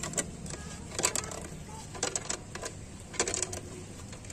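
A wrench working the bolts of a homemade steel-plate puller fitted to a scooter's CVT roller-variator boss, making short clusters of metallic clicks and clinks about once a second as the puller is tightened.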